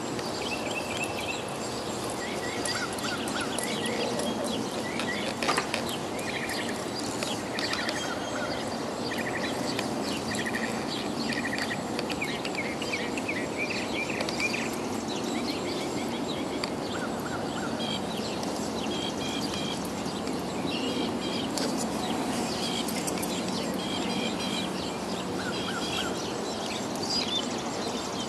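Outdoor field ambience with birds chirping in short repeated calls throughout, over a steady background hiss; a single sharp knock about five and a half seconds in.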